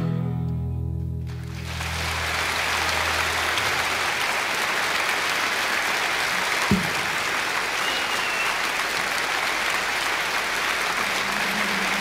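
The band's last chord of the song rings out and fades over the first couple of seconds, and a concert-hall audience breaks into steady applause. A single low thump comes about halfway through.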